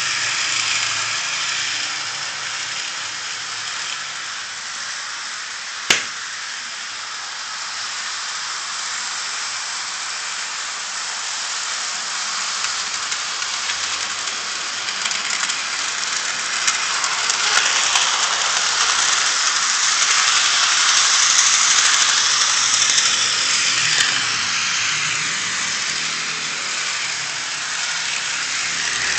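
Model train running on sectional track: the Liliput BR52 locomotive's electric motor and the wheels of it and the Rivarossi K5 railway gun give a steady rolling hiss that swells as the train comes near. A single sharp click sounds about six seconds in.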